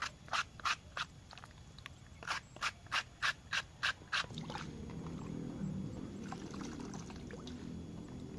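A banana blossom being shaved with a banana-blossom shaving knife: a quick run of crisp slicing strokes, about three a second, as the shreds drop into a basin of water. About four seconds in, the strokes stop and are followed by a steady sloshing and swishing as a hand stirs the wet shreds in the basin.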